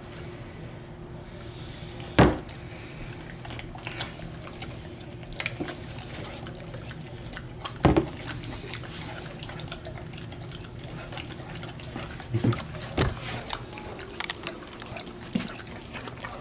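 Two Cane Corsos licking and smacking peanut butter: wet, clicking mouth sounds over and over, with two sharp knocks, one about two seconds in and one about eight seconds in.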